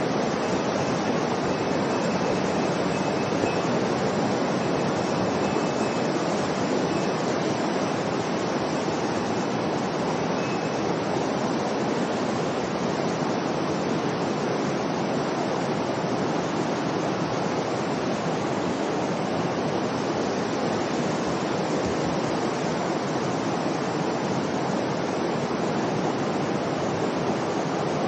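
A mountain river's water rushing in a steady, unbroken roar.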